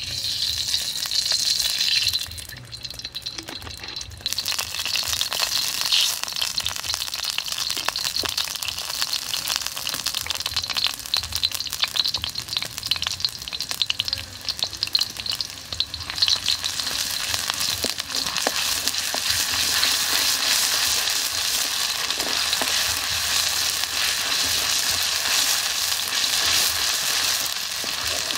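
Hot oil sizzling in a wok, then chopped ingredients frying in it with a dense, crackling sizzle that holds steady, stirred with a wooden spatula. The first hiss drops away about two seconds in before the frying picks up again.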